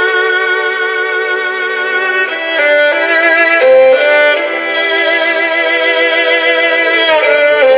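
Violin music with vibrato on held notes, played back through a multicellular horn loudspeaker. The melody moves from note to note every half-second or so.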